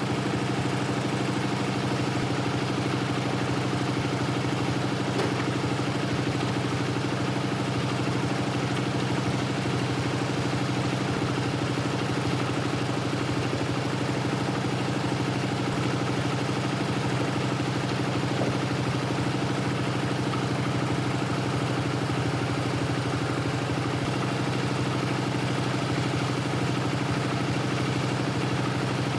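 Portable bandsaw sawmill's engine running steadily at a constant speed.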